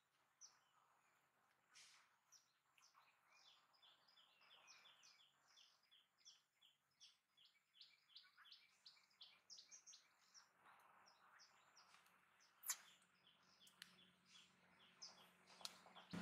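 Faint, high chirping of small birds, many quick notes in a row, with a couple of sharp clicks, the loudest near the end.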